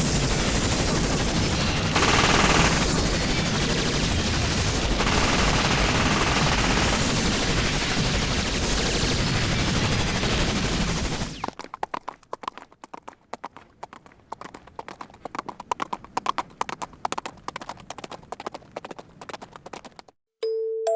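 Sound-effect demo audio: a loud, dense roar of noise for about eleven seconds that cuts off abruptly, followed by a fast, irregular clatter of sharp knocks and clicks that stops just before the end.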